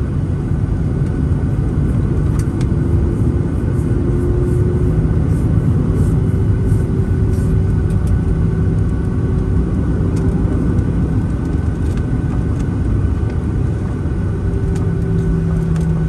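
Cabin noise of a Boeing 737-900ER heard from a window seat: a loud, steady rumble from its CFM56-7B jet engines and airflow, with a low hum and a few light rattles.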